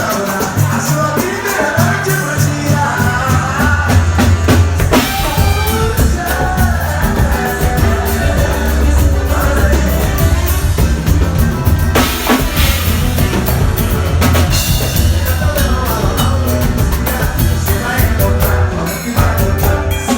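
Loud music with singing over a drum kit and a heavy, steady bass line.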